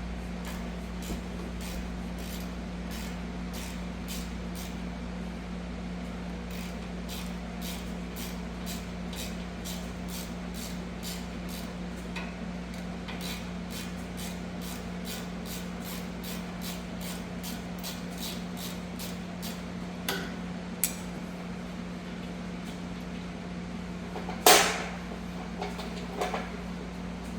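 Ratchet clicking steadily at about two clicks a second as a 10 mm brake caliper bolt is backed out, then a few sharp metal clanks and one louder clatter of tools or parts near the end, over a steady low hum.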